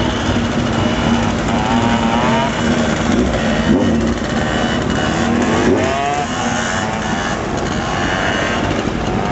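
Motor scooter engine running and revving, its pitch rising and falling several times over a steady low drone.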